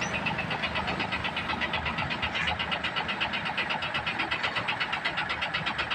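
Diesel engine of a parked Hino 700 tractor truck idling, with a steady, rapid clatter pulsing about eight times a second.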